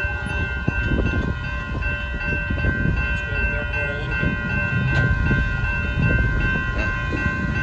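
Railroad crossing warning bell ringing steadily while the crossing gates go up, over a low rumble from the train.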